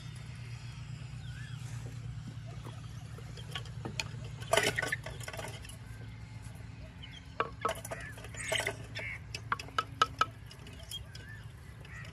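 Kitchen utensils clinking and clattering: one loud clatter about four seconds in, then a run of sharp clinks a few seconds later, over a steady low hum.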